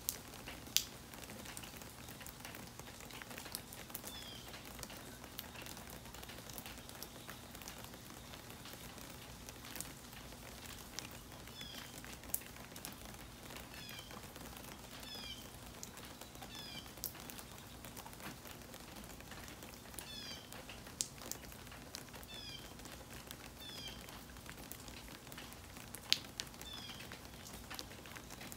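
Rain dripping, with sharp drops landing close by now and then. From a few seconds in, short high chirps that fall in pitch repeat, often in pairs, every second or two.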